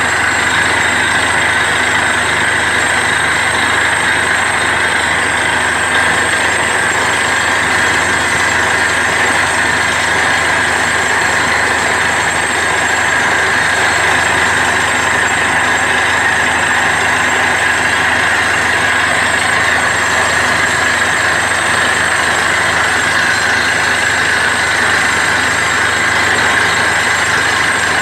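Truck-mounted borewell drilling rig drilling a water well: its engine and air compressor are running steadily while compressed air blows rock dust out of the borehole. This makes a loud, even rushing noise that does not change.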